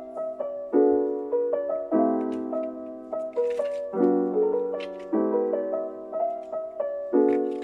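Background lo-fi piano music: soft chords struck about once a second, each ringing out before the next.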